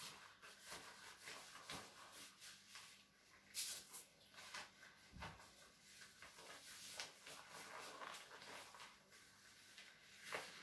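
Faint rustling and handling noises: yellow rubber kitchen gloves being pulled on, then damp yarn moved about on tin foil, with a few light clicks and a soft thump about five seconds in.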